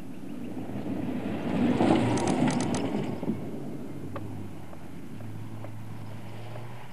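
Car engine revving as it drives hard across a dirt-and-grass paddock, heard from a distance. It swells to its loudest around two seconds in, with a few sharp clicks, then settles to a steadier low drone as the car moves away.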